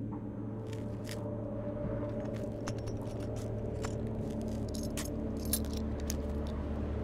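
Low, steady droning hum that slowly grows louder, with scattered sharp metallic clicks and small jingles, thickest in the middle.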